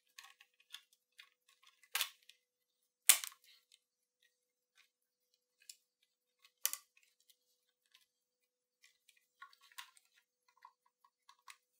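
Small plastic clicks and taps from the case of a Sony WM-F63 Sports Walkman as its white protective door cover is fitted into the cassette door, with three sharper clicks about two, three and seven seconds in.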